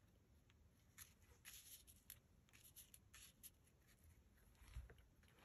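Near silence with faint, scattered rustles and light taps of paper and lace being handled and pressed by hand on a cutting mat.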